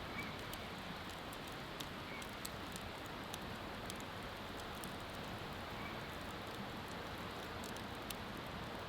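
Wood bonfire crackling, with irregular sharp pops and ticks, over a steady rush of flowing river water.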